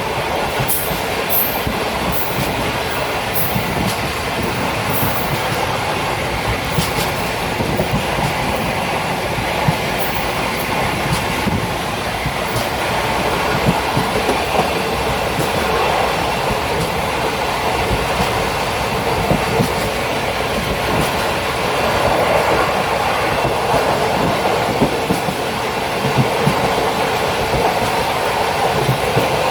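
Railway carriage undercarriage running along the track: a steady rolling rumble with irregular knocks, and brief sharp high ticks in the first five seconds.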